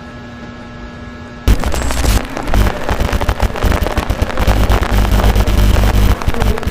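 Lightsaber soundfont effect: a low steady hum, then about a second and a half in a sudden loud, dense crackling distortion that runs on for several seconds.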